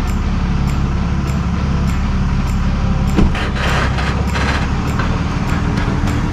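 Heavy tow truck driving: a steady engine and road noise.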